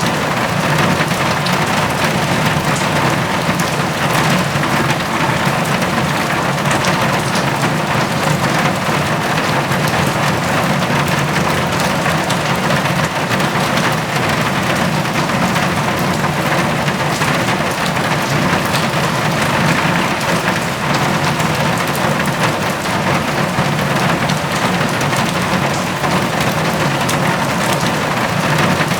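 Steady rain drumming on a tin roof, a dense patter of individual drops over a constant wash.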